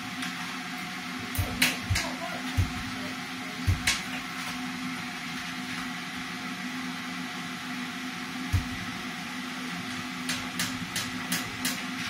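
Wire-haired fox terrier pushing at a kitchen cupboard door beside the fridge: several soft knocks of the door in the first few seconds and one more past the middle, then a quick run of sharp clicks near the end, over a steady low hum.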